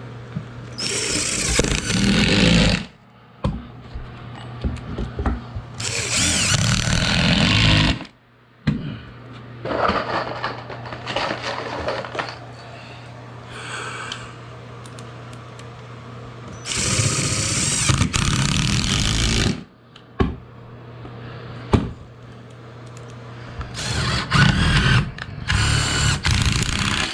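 Power drill driving screws into a plywood floor patch. It runs in about five bursts of two to three seconds each, stopping in between.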